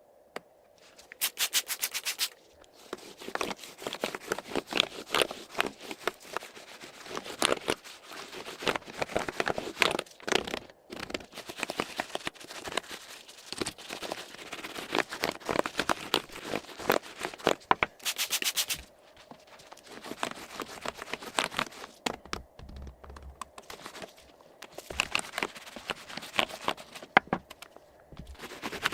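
A computer keyboard being cleaned by hand: irregular scraping, rubbing and crinkling over the keys, with two short runs of rapid clicking, one about a second in and one a little past halfway.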